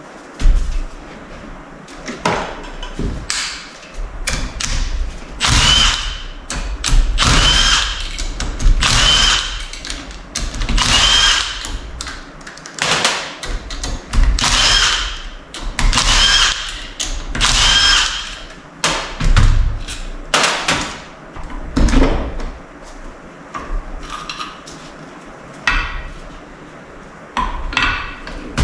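Handheld power tool run in about eight short bursts of a second or so, each spinning up to a high whine. Metal knocks and clanks come before and after the bursts.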